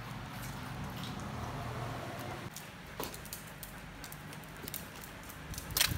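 Dogs' claws clicking and pattering on a tiled floor as they move about in play: a few scattered sharp clicks, the sharpest just before the end.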